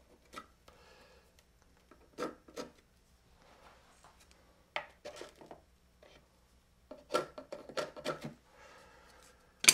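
Scattered light taps, scrapes and rustles of hands working on a foam-board model fuselage, marking it and fixing small cardstock pieces to it with pins. A single sharp click near the end is the loudest sound.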